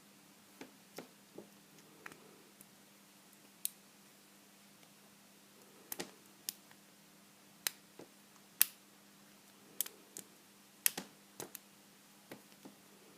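Lock pick and tension wrench working the pins of a vintage Corbin pin tumbler padlock: sharp, irregular metallic clicks, a few much louder, with a faint steady hum underneath.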